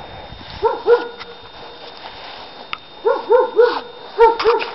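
A dog barking: seven short barks in three quick runs, two, then three, then two.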